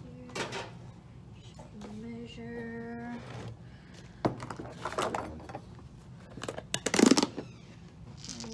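Handling of a cardboard Quaker Oats canister: rustles and knocks, then a loud cluster of pops and scrapes about seven seconds in as its plastic lid is pried off. A short, steady-pitched hum of a voice comes earlier.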